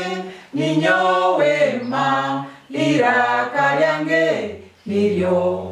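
A small group of voices singing a letter-sound chant in Runyoro-Rutoro, unaccompanied, in three short phrases on held notes with brief pauses between.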